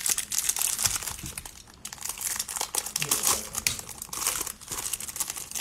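Plastic wrapper of a trading-card pack crinkling in the hands as the pack is worked open, with a brief lull about a second and a half in.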